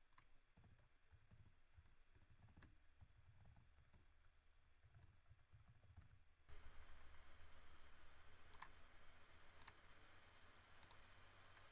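Very faint computer keyboard typing and mouse clicks: scattered light taps, then a faint hiss comes in about halfway, with three sharper clicks near the end.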